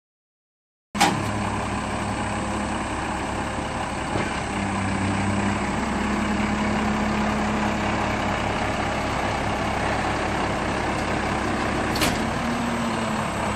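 Truck engine running steadily with its hydraulics working as the outrigger leg is lowered by remote control. The sound starts about a second in, and there is a single sharp click near the end.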